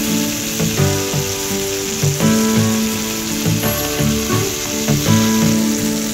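Chicken and pepper skewers sizzling in oil on a flat griddle, a steady hiss, under background music with a melody that changes note every fraction of a second.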